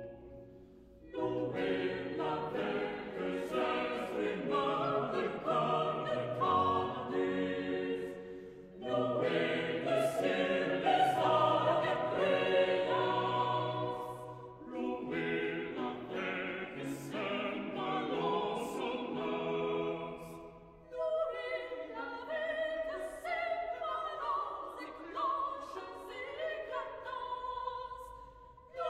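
Background music: classical vocal music, with singing voices held in long phrases and brief pauses between them.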